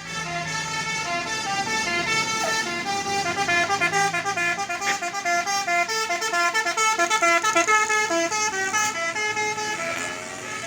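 Bus 'telolet basuri' musical horn playing a quick melody, its notes stepping up and down several times a second. A low engine hum is heard under it at first.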